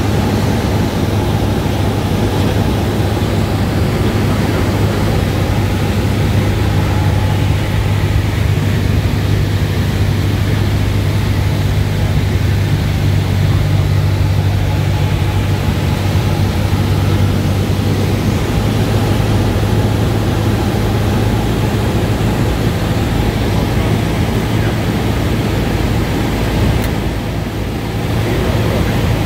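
Cessna 172's four-cylinder Lycoming piston engine and propeller heard from inside the cabin: a steady, loud drone with a low hum over airflow noise during a descending approach. The level dips briefly near the end.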